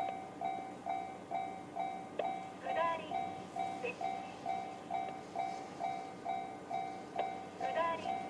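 Japanese railway level-crossing alarm sounding the JR standard electronic bell tone, a steady pitched ding repeating about two and a half times a second. Twice, about three seconds in and near the end, a brief chirping sound rises slightly above it.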